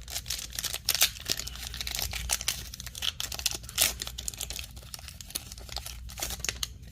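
Foil Pokémon TCG booster pack wrapper being torn open and crumpled, a dense run of crinkling and crackling.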